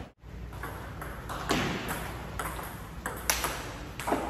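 Table tennis ball being hit back and forth, sharp irregular clicks of the celluloid/plastic ball off rubber paddles and the tabletop, a few each second, over a low steady hum.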